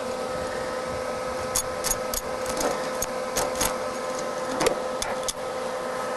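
TIG welding arc building up filler rod in a hole in a car's sheet-steel body panel: a steady electrical buzz with scattered sharp crackling ticks through the middle, as the arc works over rusty metal.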